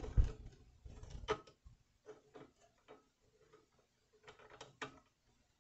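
A cord grip on a metal switch box being tightened by hand around a power cord: a string of irregular, ratcheting clicks, with a low bump just after the start.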